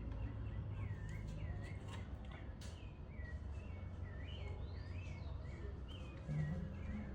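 Birds chirping: repeated short swooping calls over a steady low background hum.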